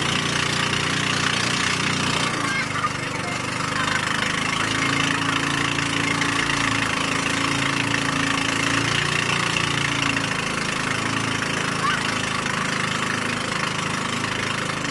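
Engine of a motorized outrigger fishing boat (bangka) running steadily under way, with a steady rush of water and wind over it.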